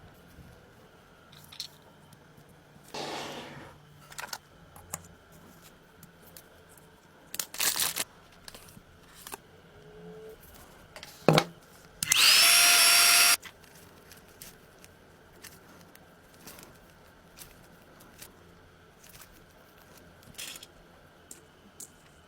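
Scattered clicks and short scrapes of parts being handled, then, about twelve seconds in, a small power tool whirs for about a second and a half, its pitch rising as it spins up.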